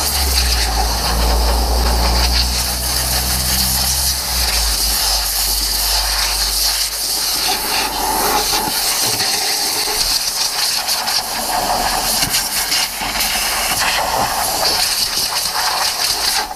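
Loud, steady hissing noise. A low rumble in the first few seconds fades out after about four seconds, and the hiss cuts off abruptly at the end.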